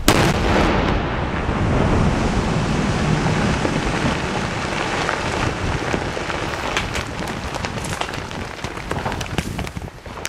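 Explosive charges blasting a river ice jam: a sudden loud blast, then a long, steady rush of water and shattered ice falling back, with many small scattered impacts in the last few seconds as the fall thins out.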